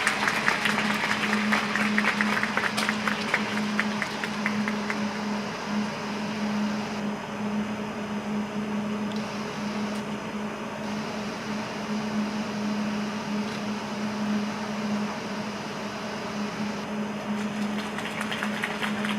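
Arena applause after a skating program, dying away over the first few seconds, then a steady low mechanical hum of the rink hall; scattered clapping picks up again near the end.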